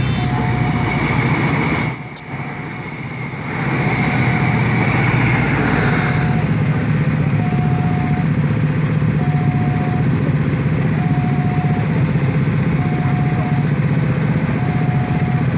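Railway level-crossing alarm sounding a short tone about every two seconds over a crowd of idling motorcycle engines. For the first few seconds the passing commuter train adds a louder rushing noise that fades out.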